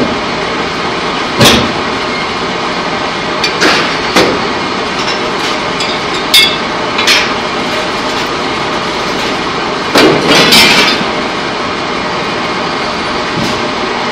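Steady loud running noise of pipe-coating plant machinery, broken by several sharp clanks and knocks. The loudest come about a second and a half in and in a rattling cluster around ten seconds in.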